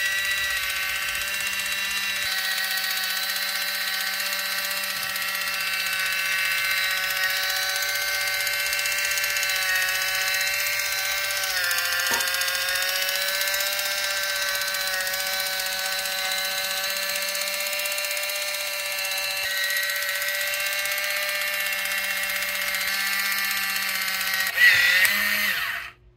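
Kitchen Mama battery-powered electric can opener running on top of a can, its small motor whining steadily as it travels round the rim cutting the lid. There is a faint click about halfway, it gets briefly louder near the end, and then it cuts off suddenly.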